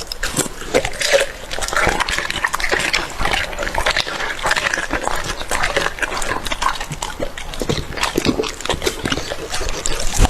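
A dog chewing raw chicken: wet smacking and chewing in a dense, irregular run of clicks.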